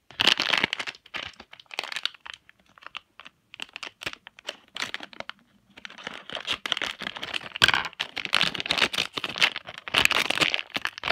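A foil Shopkins blind bag packet crinkling and crackling as it is handled and torn open, in irregular bursts with a short lull about halfway through.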